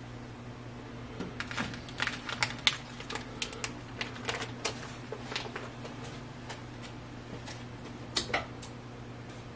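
Clear plastic bag being crumpled and handled, a run of sharp crackles for a few seconds and a brief burst again near the end, over a steady low hum.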